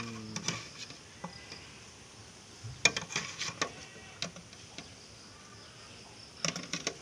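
Metal ladle clinking and scraping against a bakso vendor's metal pot and a glass serving bowl while meatballs are scooped out: a cluster of sharp clinks about three seconds in and another near the end.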